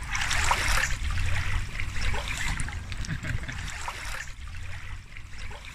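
Shallow river water splashing and trickling, with many small splashes and drips. It eases off about four seconds in.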